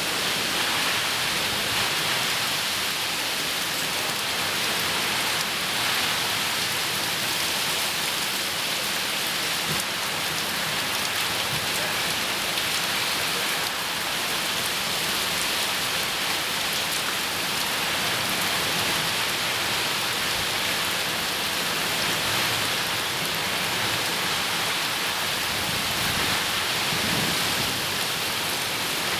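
Heavy hurricane rain falling steadily on trees, with runoff pouring off a roof edge: an even, unbroken hiss.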